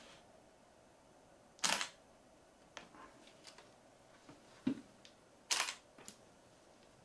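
Canon EOS 30D DSLR taking two shots with its pop-up flash raised, one about two seconds in and one near the end. Each shot is a sharp shutter-and-mirror clack, and there are a few faint clicks from handling and buttons between them. It is a test that the shutter and flash fire.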